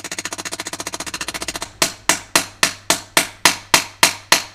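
Hammer blows on a 22 mm socket, driving a bicycle bottom-bracket bearing into its cup: a fast run of light taps, about ten a second, then a little under two seconds in, harder, louder, ringing blows about four a second. The changed sound of the later blows signals that the bearing has reached the bottom of the cup.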